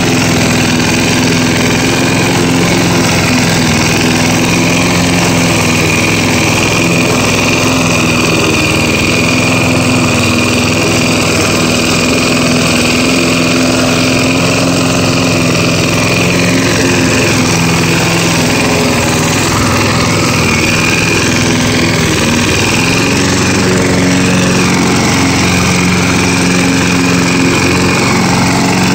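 1981 Roper 22-inch push mower's vertical-pull Briggs & Stratton engine running steadily as the mower cuts grass. The engine pitch dips briefly about three-quarters of the way through, then picks back up.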